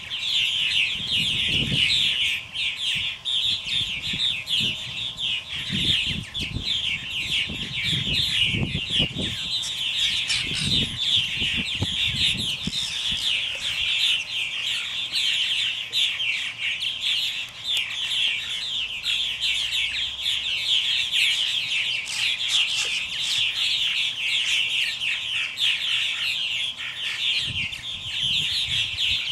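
A colony of purple martins chattering, many birds calling over one another in a dense, unbroken chorus of short chirps and gurgles. Low rumbling bursts come and go in the first dozen seconds and again briefly near the end.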